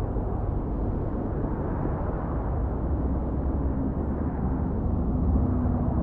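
The 'Outbound' noise-masking soundscape from the Bose Sleepbuds 2 sound library: a steady, deep wash of noise that feels like a windy city. A faint steady hum comes in about halfway through.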